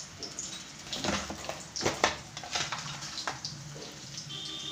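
Garlic cloves sizzling in hot oil in a kadhai, a steady hiss with irregular crackling pops, several louder ones about one to two seconds in.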